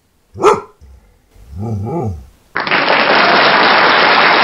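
A dog barks once on command, then gives a lower, drawn-out "rah rah rah" whose pitch rises and falls. From about two and a half seconds in, a loud, steady rush of noise takes over.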